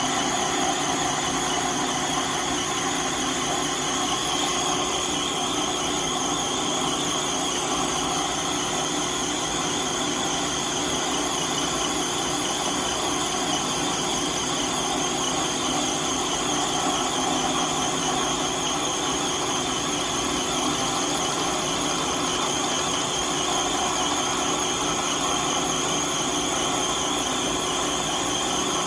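Metal lathe running steadily while boring a rod, making an even machine drone of several held tones that does not change.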